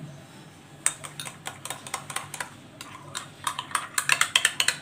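A spoon clinking and scraping against a glass bowl as spices are stirred into yogurt. The irregular clinks start about a second in and come faster near the end.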